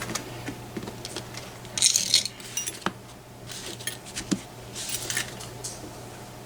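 Small brass lock parts clinking and rattling in a few short bursts with single clicks between, as a pin-tumbler challenge lock is gutted and its plug, key pins and driver pins are taken out.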